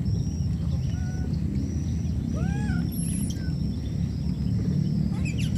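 Outdoor ambience: a low rumble of wind on the microphone under a steady high-pitched insect drone, with a short arched squeaky animal call about two and a half seconds in and another quick squeak near the end.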